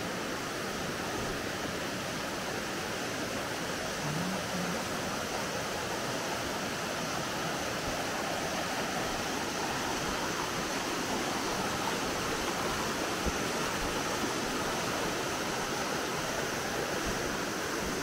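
Rocky mountain stream rushing over stones: a steady, even rush of water.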